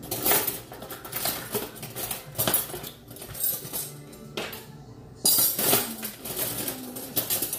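Kitchen utensil scraping and clinking against a tub of vegetable-oil spread and the pot as spread is scooped out: a string of short scrapes and clinks, loudest about five to six seconds in.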